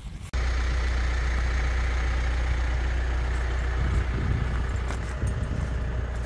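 A motor vehicle running: a steady low engine drone with road noise, starting abruptly a moment in, with a few light knocks about two-thirds of the way through.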